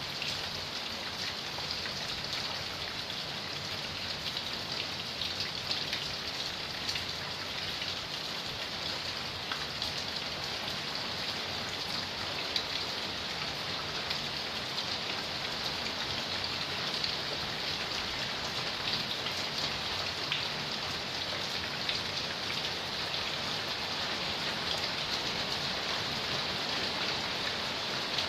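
Heavy rain falling steadily, a dense hiss of drops pattering on surfaces, with many small drop ticks.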